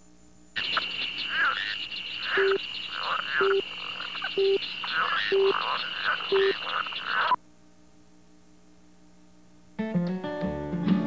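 Chorus of frogs croaking and chirping over a steady high trill, with five short low beeps one a second; it cuts off abruptly. After a few seconds of near silence, music starts near the end.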